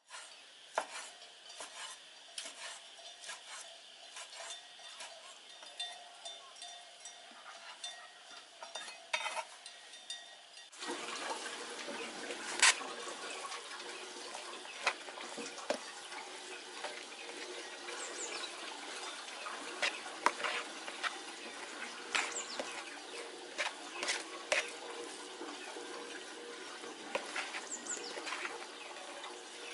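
Clinks and scrapes of utensils against pots and dishes, many small sharp knocks, over a steady hiss that grows louder about eleven seconds in.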